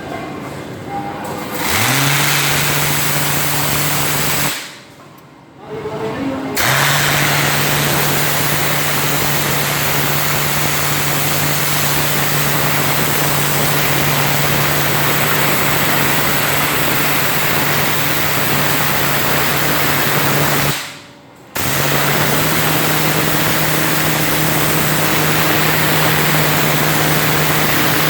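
Kärcher HD 9/50-4 Cage 500-bar pressure washer running: a steady hum under the loud hiss of the high-pressure jet blasting concrete off a floor. It starts about two seconds in, cuts out for a couple of seconds around a fifth of the way through, and cuts out again briefly near three quarters before resuming.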